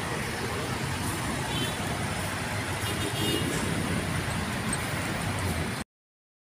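Road traffic: cars and vans passing, with a steady mix of engine hum and tyre noise. It cuts off abruptly near the end.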